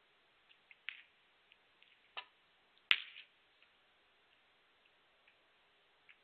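A snooker break-off shot: the cue tip strikes the cue ball, then several sharp clacks of the balls against the pack of reds and the cushions, the loudest about three seconds in, followed by a few faint ticks.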